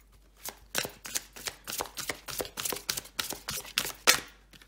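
A deck of oracle cards being shuffled by hand: a quick, uneven run of sharp card snaps and slaps, starting just under a second in.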